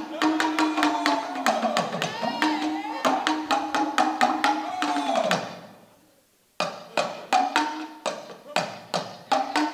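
Music with fast, sharp drum strikes under a held melodic line. It fades out about five and a half seconds in, stops for about a second, then the drumming starts again.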